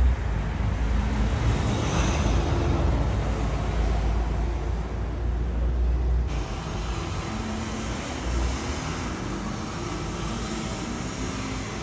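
Road traffic on a busy street: vehicles passing with a steady low rumble of engines and tyres, changing somewhat about six seconds in.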